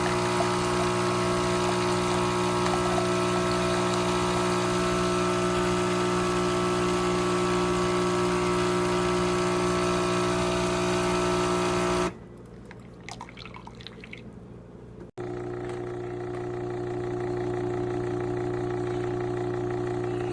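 Nespresso Lattissima Pro espresso machine's pump running with a steady buzzing hum while it brews, stopping about twelve seconds in. After a few quieter seconds with faint ticks and a sharp click, a softer steady machine hum starts up.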